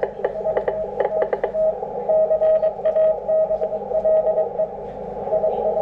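Morse code from an HF amateur radio station: a single tone keyed on and off in dots and dashes over receiver hiss, clearest in the middle and again near the end, with frequent sharp crackles of static.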